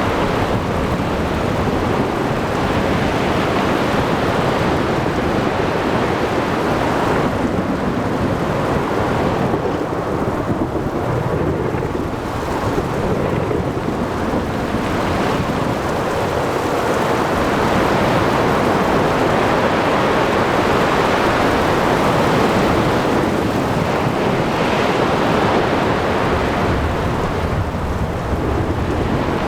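Ocean thunderstorm: steady heavy rain and wind with rumbling thunder and breaking surf, dense and continuous.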